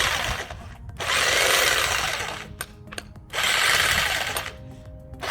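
Vevor 2200-watt electric jackhammer run in bursts of a second or so, starting and stopping several times. The user is not sure the hammer action is engaging.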